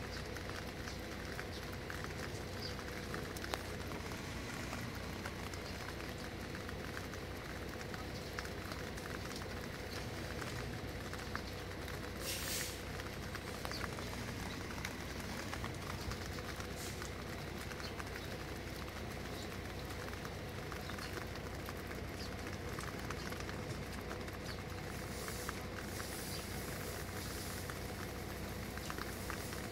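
Steady background noise with faint scattered ticks and a brief hiss about twelve seconds in; the cat makes no sound.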